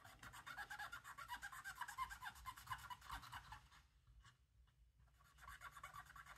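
Cotton swab dipped in alcohol scrubbing a camera's circuit board in rapid back-and-forth strokes, a faint scratchy rubbing. It stops for about a second and a half, then starts again near the end. The board is being cleaned of moisture damage.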